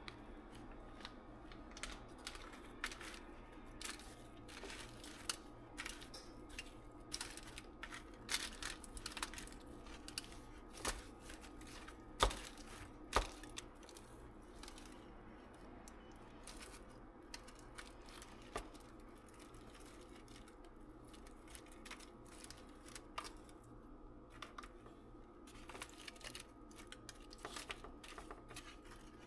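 Irregular light clicks and taps of small objects being handled, two sharper knocks about halfway through, over a steady low hum.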